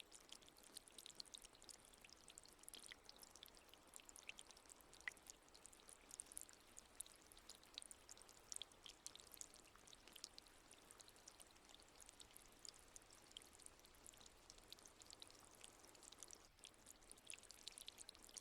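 Faint, soft trickling water: a steady patter of many small, high, drip-like splashes over a light hiss.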